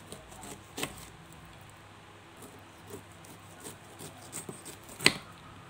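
Small kitchen knife cutting pineapple rind on a wooden cutting board: scattered clicks and taps as the blade cuts and meets the board. There is a sharp knock just under a second in and a louder one about five seconds in.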